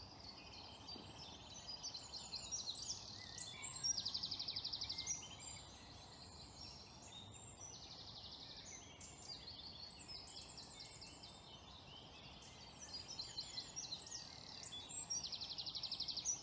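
Dawn chorus of several woodland songbirds singing at once, their songs overlapping. A loud, rapid trill stands out about four seconds in and again near the end.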